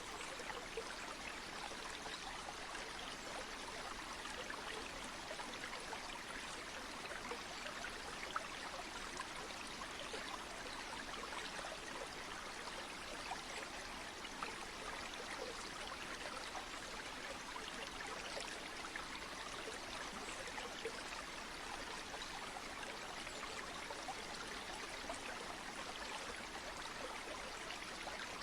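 Steady rushing of a flowing stream or river, an even hiss of water with small splashes and trickles in it, unchanging throughout.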